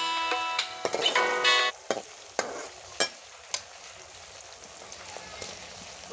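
Onions and garlic-ginger paste sizzling in hot ghee while a stainless steel spatula stirs them, clinking against the metal pot four times. Music plays for the first second and a half or so.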